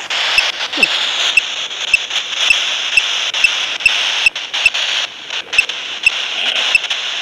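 Ghost box app on a phone sweeping through radio channels: a steady hiss of static broken by a click about twice a second as it jumps from channel to channel, with a short falling sound about a second in.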